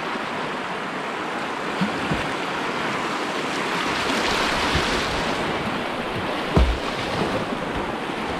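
Steady rush of whitewater in a shallow river rapid, with a brief low thump about six and a half seconds in.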